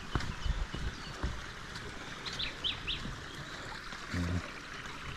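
Steady hiss of running water from a small waterfall, with three quick high bird chirps about two and a half seconds in. There are a few low thumps near the start and a brief low-pitched sound about four seconds in.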